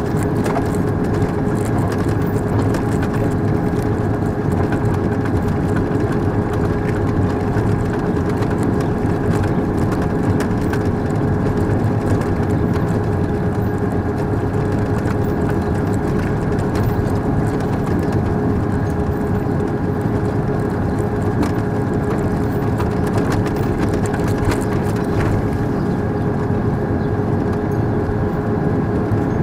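An armoured military vehicle's engine and drivetrain running steadily on the move, a low rumble with a constant whine held over it.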